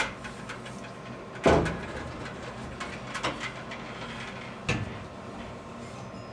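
Metal fuel and ice-water tank knocking and scraping against the car's body as it is set into the cut-out floor opening: one loud knock about a second and a half in, then lighter knocks near the middle and later on.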